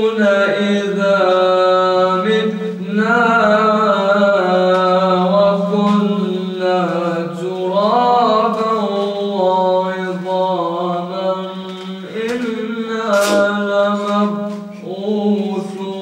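A young man's melodic Quran recitation: long, held, ornamented phrases in one solo voice, broken by short pauses for breath, over a steady low hum.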